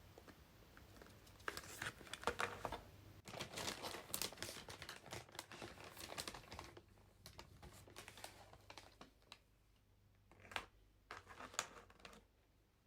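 Crinkling and rustling handling noise close to the microphone, dense for the first several seconds and then thinning to scattered clicks.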